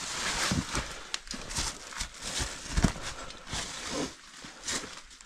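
A person clambering down over loose rock: scraping, shuffling and irregular knocks of stone, with one sharper knock about three seconds in.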